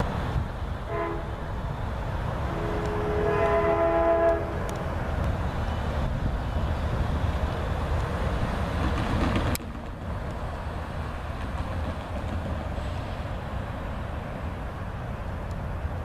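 Long Island Rail Road locomotive's multi-note chime horn: a short toot about a second in, then a longer blast of about two seconds, over loud rumbling noise. A little past halfway the sound cuts off suddenly to a steadier, quieter low background noise.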